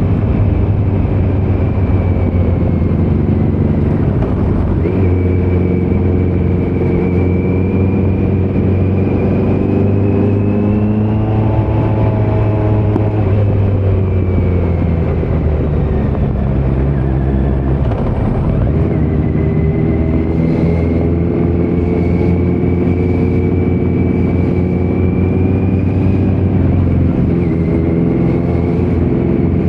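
2018 Kawasaki Z900's inline-four engine through a Leo Vince muffler on stock headers with no dB killer, ridden under way. The revs climb for several seconds, ease off through the middle, then climb again, with a steady high whine over the exhaust note.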